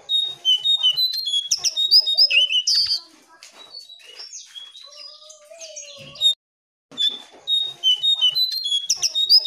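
Jongkangan (lesser shortwing) singing: fast runs of high, sweet whistled notes and trills. The song turns quieter after about three seconds, breaks off briefly just past six seconds, then the same run of notes starts again.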